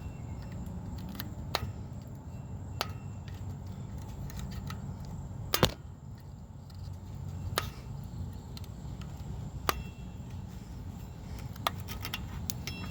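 A handful of sharp clicks and light knocks, about six spread out, the loudest a double click about halfway through, over a steady low background hum.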